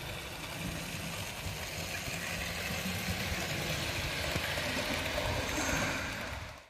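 Model trains (Bachmann OO-gauge GWR Manor locomotives and coaches) running on an outdoor garden layout: a steady rolling rumble and hum of wheels and motors on the rails, growing a little louder and then fading away near the end.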